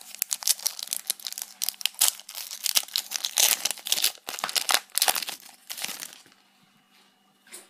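Foil wrapper of a Pokémon TCG booster pack crinkling and tearing as it is opened by hand: a dense run of sharp crackles for about six seconds, then it goes quiet.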